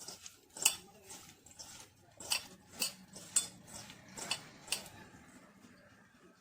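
A utensil clinking against a bowl about six times while soya chunks are mixed with their spice marinade, with faint scraping between the clinks, which die away near the end.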